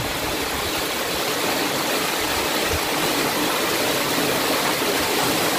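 Steady rushing of a fast-flowing shallow river running over gravel.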